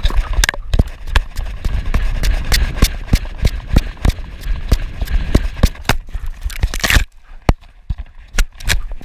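Body-mounted action camera on a running Giant Schnauzer: rapid, irregular knocks and thumps as the camera jolts with each stride, over a low rumble of wind on the microphone. About seven seconds in, the thumping thins out to a few separate knocks.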